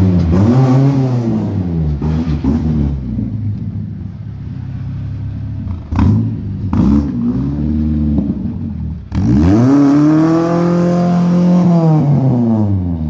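The 1972 Toyota Corolla's engine is revved several times, its pitch climbing and falling with each blip. The longest rev comes near the end and is held for a few seconds.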